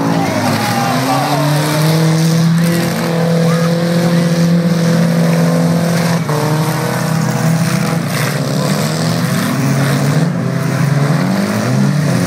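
Several demolition derby cars' engines running and revving together, their pitches rising and falling independently over a steady noisy haze.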